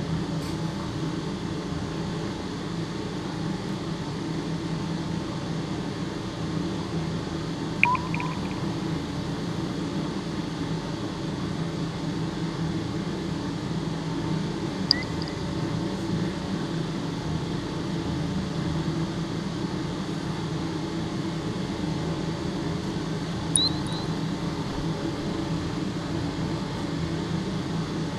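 Ambient soundtrack drone: a steady low hum with three brief high-pitched blips scattered through it.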